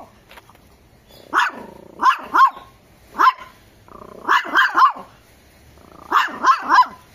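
A small black-and-tan pinscher barking: about ten high-pitched barks in quick runs of one to three, with short pauses between the runs.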